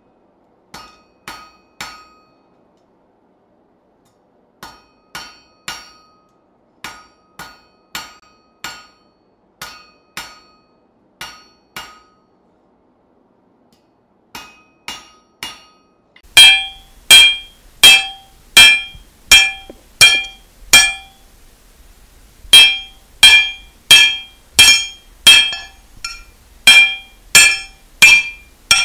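Blacksmith's hammer striking metal on an anvil, each blow ringing, in short runs of about two blows a second with brief pauses. The blows are fainter at first and much louder from about halfway through.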